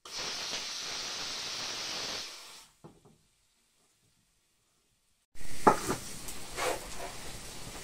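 A cooking pot on the stove hisses steadily for about two seconds, then fades out. After a silent gap, metal pots and dishes clatter loudly near the end.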